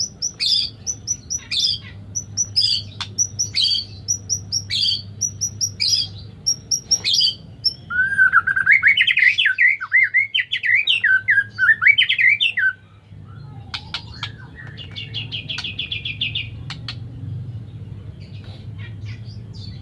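White-rumped shama (murai batu) calling: a sharp high note repeated about twice a second, then a loud warbling song phrase a little past the middle, then a short rapid trill.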